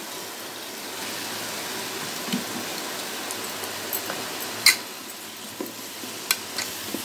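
Onion-tomato masala with tamarind water sizzling steadily in a pressure cooker as toor dal is tipped in and stirred with a metal spoon. A few sharp clicks of the spoon against the pot, the loudest about two-thirds of the way through.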